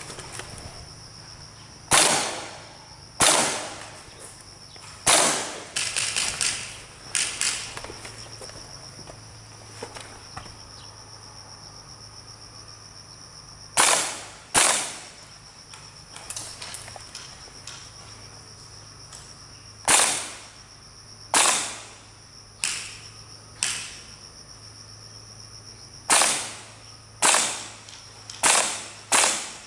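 Airsoft guns firing single shots: sharp pops at irregular intervals, some alone and some in quick pairs, about seventeen in all. A steady high-pitched drone of insects runs underneath.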